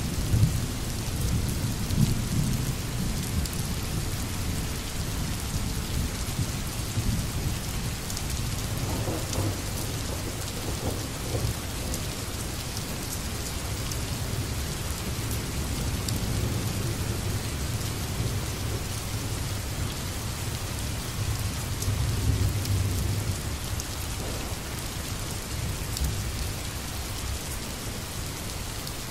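Steady rain hissing, with low rumbles of thunder that swell near the start and again about twenty-two seconds in.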